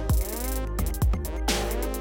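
Electronic background music with a steady kick-drum beat and gliding synth lines.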